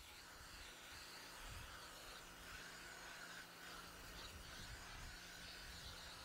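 Near silence: a faint steady outdoor hiss with a low hum.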